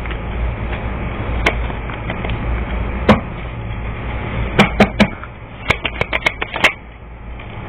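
A series of sharp taps and clicks, a few spaced out and then several in quick succession near the end, over a steady low hum.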